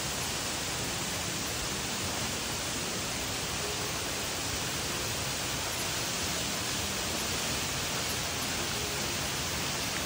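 Yoro Falls pouring steadily: an even, unbroken rush of falling water.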